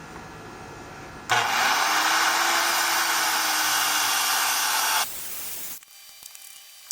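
Electric power saw running and cutting wood, starting abruptly about a second in and stopping after roughly four seconds, with a faint motor hum beneath the cutting noise.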